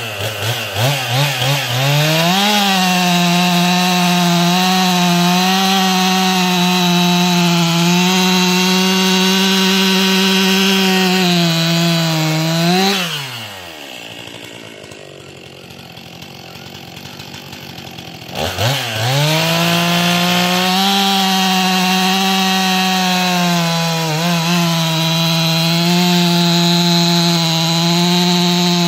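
Two-stroke chainsaw revved a few times, then held at full throttle cutting through wood. About thirteen seconds in it drops to a low idle, then revs up again about five seconds later and cuts on at a steady high pitch.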